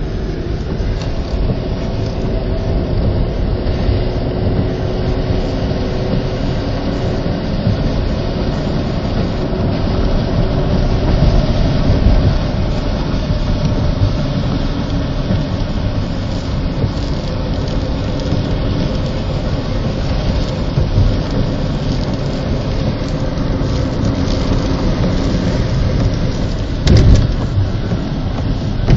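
A car being driven through a storm: a steady rumble and hiss of road, wind and rain noise, with a brief knock near the end.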